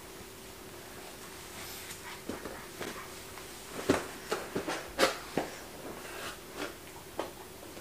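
Scattered light clicks and knocks, about a dozen at uneven intervals, over a faint steady hum.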